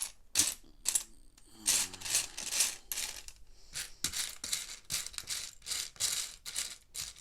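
Loose plastic Lego pieces clattering and clicking under the hands: a quick, uneven run of small rattles and clicks.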